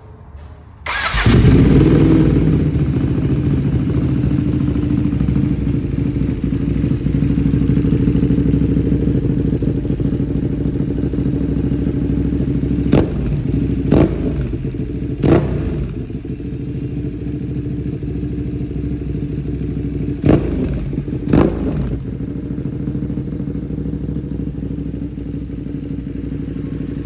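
Ducati Panigale V2 Bayliss's 955 cc Superquadro L-twin through a full SPARK exhaust. It starts about a second in and then idles steadily, with five short throttle blips that rise and fall in pitch, in two groups, around the middle and a little later.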